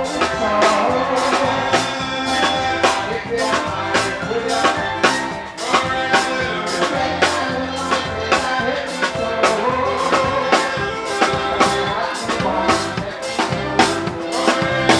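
Upbeat music with a steady drum-kit beat and pitched instruments.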